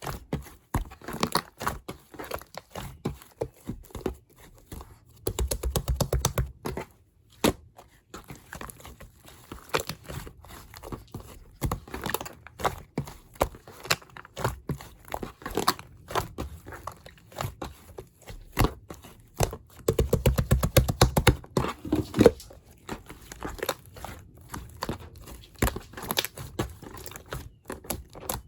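A crisp apple being worked close to the microphone: dense, irregular crunches and clicks, with two louder, deeper stretches of crunching about five seconds in and again about twenty seconds in.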